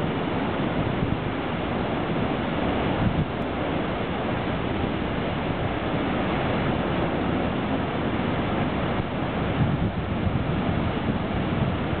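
Storm waves breaking over a flat rock shelf and white water cascading off the ledges: a steady rush of surf. Wind buffets the microphone in gusts, most in the last few seconds.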